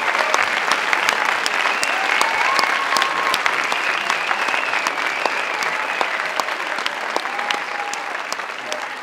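Theatre audience applauding at the end of a dance, many hands clapping at once; the applause slowly fades toward the end.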